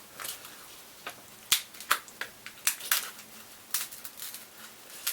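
King crab shell being cracked and snapped open by hand: a string of short, sharp, irregular cracks and crunches.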